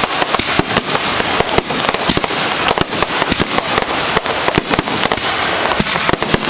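Fireworks crackling in a dense, continuous barrage of sharp pops, many a second, over a steady hiss.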